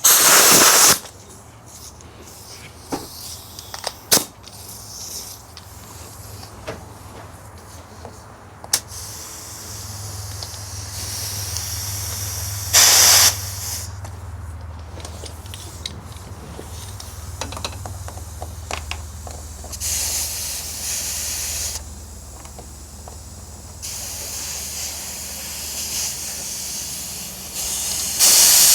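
Short bursts of hissing compressed air: one about a second long at the start, a shorter one in the middle, and another beginning just before the end. A few sharp clicks come between them, and a low steady hum sets in about a third of the way through.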